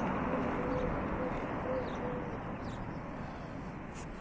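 Outdoor street noise that fades slowly, with soft bird cooing: several short low notes in the first two seconds or so.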